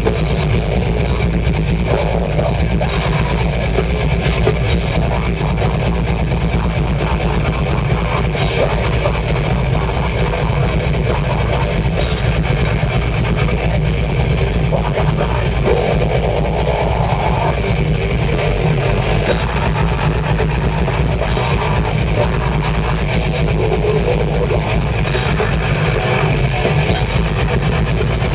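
A live heavy rock band playing loud, with electric guitars over a drum kit, without a break.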